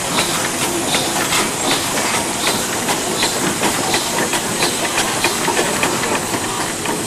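Steam traction engine driving along: its exhaust chuffs in a steady beat of a little over one a second over a constant hiss of steam.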